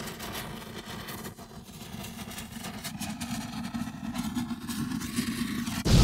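Low rumbling sound effect that slowly builds in loudness, then breaks into a sudden loud boom at the very end: an explosion effect.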